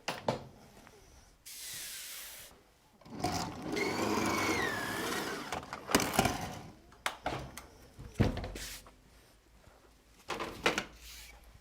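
Roller blind fabric being unrolled from its roll and handled on a work table. There is a rushing, whirring noise with a squeaky gliding tone for about two seconds in the middle, set between several sharp knocks and clicks.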